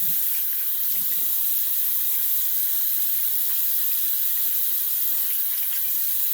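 Bathroom tap running steadily into the sink, with the faint sound of hands in the water, while shaving lather is rinsed off the face.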